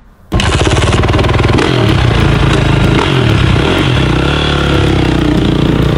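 Honda CRF450 dirt bike's single-cylinder four-stroke engine running loud, revved up and down. It cuts in abruptly just after the start.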